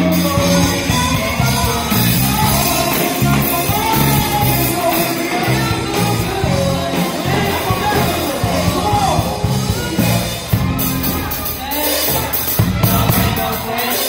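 Live band playing a 90s R&B medley with singing, steady bass and beat, and shouts and whoops from the crowd over it.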